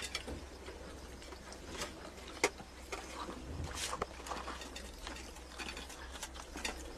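Faint clicks and taps of fingers and a ring against a steel plate as flatbread is torn and dipped in curry, over a steady low hum. The clicks are scattered, with the sharpest one about two and a half seconds in.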